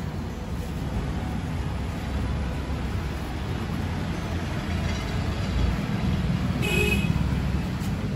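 Steady low rumble of road traffic, with a short vehicle horn toot about seven seconds in.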